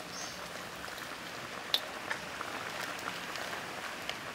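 Squid and vegetables sizzling in a hot wok, a steady hiss with small scattered pops and crackles, and one sharp click a little under two seconds in.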